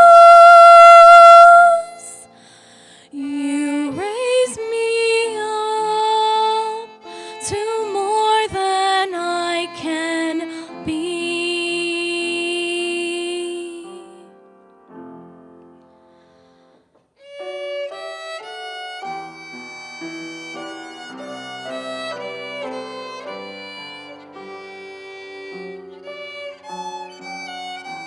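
Live church special music: a melodic phrase with wavering, gliding pitch that ends on a long held note, then after a short pause about halfway through, a quieter instrumental passage of quick stepped notes that sounds like violin.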